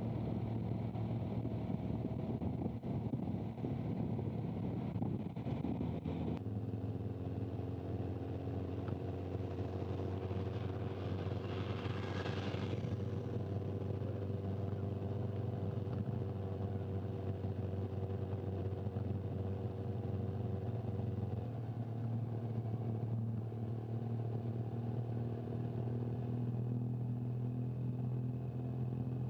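Motorcycle engine running steadily at a constant pitch, heard close up on the camera motorcycle's microphone. The engine sound changes abruptly about six seconds in and again about two-thirds of the way through, and a brief rushing noise comes through about twelve seconds in.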